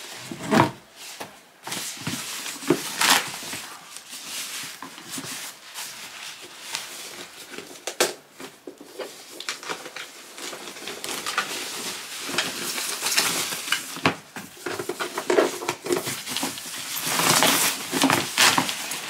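Thin plastic packaging crinkling and rustling as it is handled and pulled off by hand, in irregular crackly bursts, loudest near the end.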